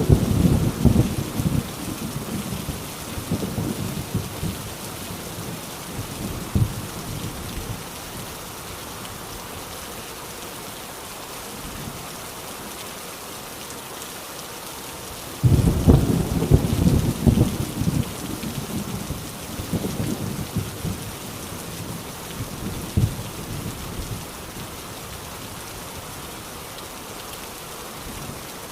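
Heavy rain falling steadily, with thunder: a rumble fading away over the first few seconds, then about halfway through a sudden clap of thunder that rolls on for several seconds and dies away.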